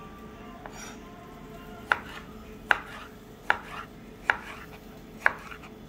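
Kitchen knife chopping a tomato on a wooden cutting board: a soft knock early, then five sharp knocks of the blade on the board at an even pace, a little under a second apart, starting about two seconds in.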